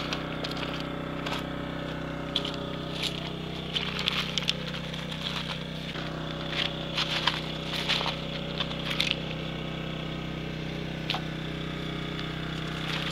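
A steady low hum, with scattered light clicks and knocks over the first nine seconds or so.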